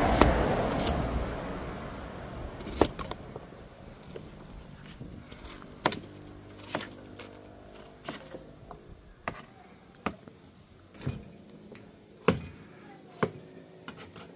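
A passing vehicle fades away over the first two seconds. After it come irregular sharp knocks and clicks, roughly one a second.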